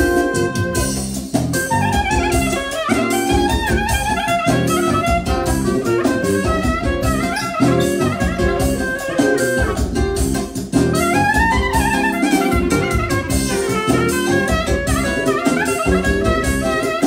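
Clarinet playing a fast, ornamented manele solo over an electronic keyboard accompaniment with a steady beat.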